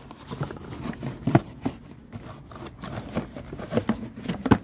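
Cardboard product box being handled and worked open: rustling, scraping and a few light knocks, the sharpest near the end.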